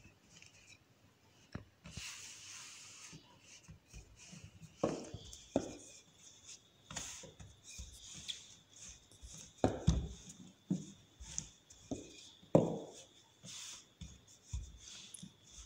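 Wooden rolling pin rolling out dough on a floured wooden table: soft rubbing, broken by irregular wooden knocks of the pin against the tabletop, the loudest about five, ten and twelve seconds in.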